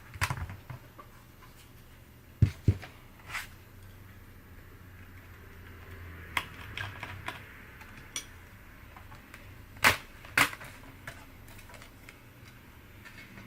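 Scattered clicks and knocks of a laptop and tools being handled on a work surface during disassembly, with two dull thumps about two and a half seconds in and two sharper, louder clicks about ten seconds in.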